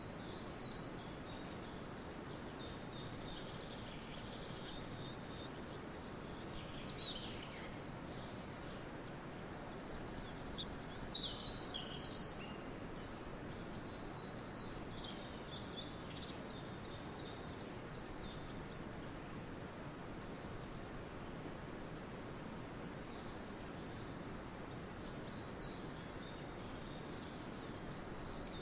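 Songbirds singing in scattered short phrases over a steady background hiss, the birdsong loudest about ten to twelve seconds in.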